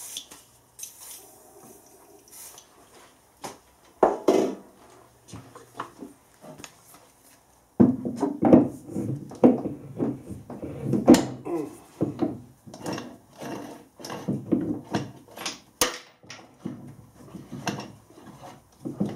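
Heavy metal four-jaw lathe chuck being handled and worked onto the lathe's taper spindle nose: irregular metal clunks, knocks and scraping. A few scattered knocks at first, then a busy, continuous run of clunks and rubbing from about halfway through.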